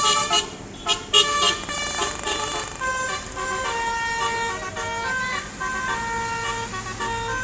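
Indonesian 'telolet' multi-tone bus horn playing a tune: a run of bright horn notes that step up and down in pitch. A few sharp cracks sound about a second in.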